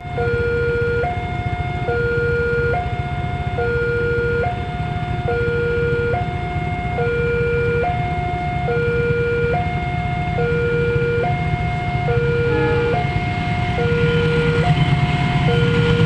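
Two-tone hi-lo warning siren, switching between a low and a high note about every second, over a low rumble that grows louder near the end.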